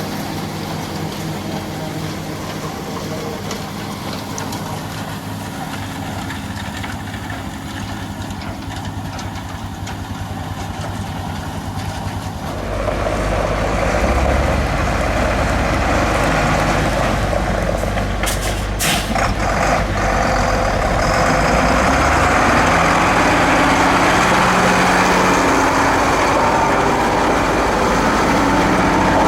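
Farm tractor diesel engine running steadily; about twelve seconds in a louder rushing machinery noise joins and the overall sound grows louder, with a couple of sharp clacks a few seconds later.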